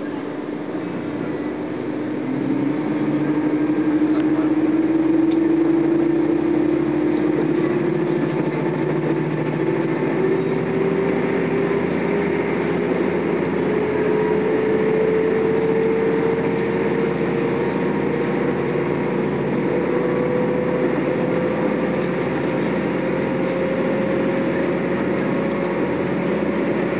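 JR Central KiHa 75 diesel railcar under way, heard from inside the car: the diesel engine pulling under load, its drone rising slowly and steadily in pitch as the train gathers speed, over the running noise of the wheels on the rails. It gets louder about two and a half seconds in.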